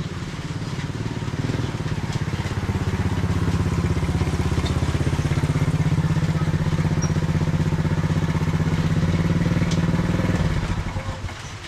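A motorcycle engine running with a fast, even pulse. It grows louder over the first few seconds, holds steady, then dies away near the end.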